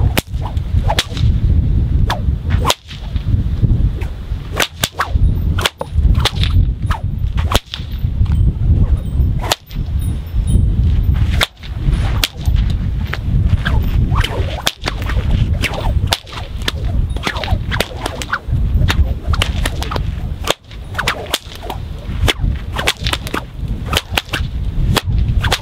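A 550 paracord stockwhip cracked again and again in quick succession, sharp cracks coming every second or less, over a steady low rumble.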